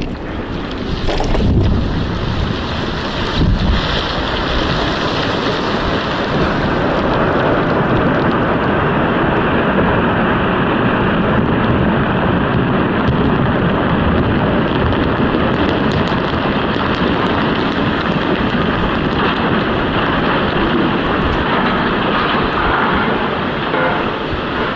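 Mountainside demolition blasting: several sharp explosive reports in the first few seconds, followed by a long, continuous rumble of rock and debris coming down, with wind noise on the microphone.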